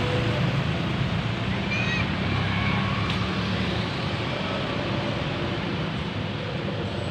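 Roadside traffic noise: a passing vehicle's low engine rumble and road noise, slowly fading.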